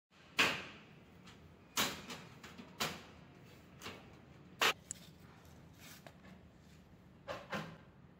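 Sharp knocks and clacks of an aluminium spandrel door frame and its panels being handled and fitted together: a handful of separate hits at irregular intervals, each with a short ringing tail.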